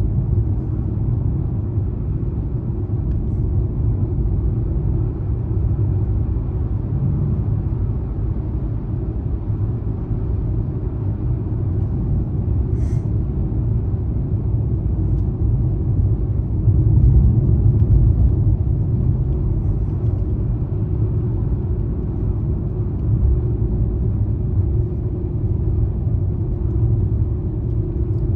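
A car driving at speed: a steady low rumble of engine and tyres on the road, swelling slightly for a moment, with a single short click near the middle.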